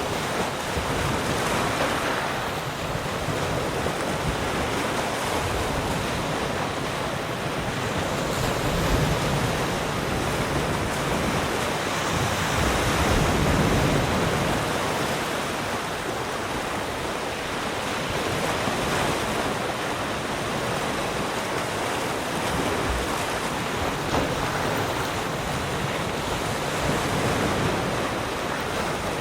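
Ocean waves breaking and washing in a continuous surf hiss. The loudness swells slowly every several seconds as waves come in, with a touch of wind.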